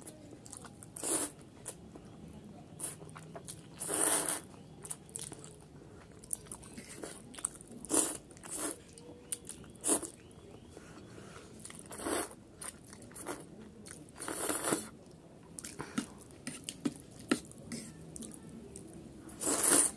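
Close-miked eating of Maggi instant noodles: noisy slurps, each under a second, as forkfuls are sucked in every few seconds, with short wet smacks and chewing clicks between.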